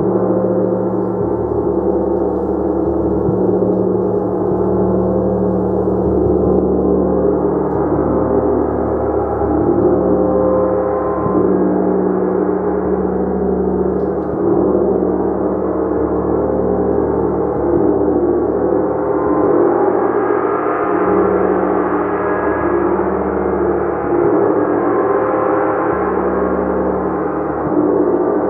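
A gong played continuously in a sustained, shimmering wash of overlapping tones, swelling and ebbing in slow waves, growing brighter in the upper tones in the later part.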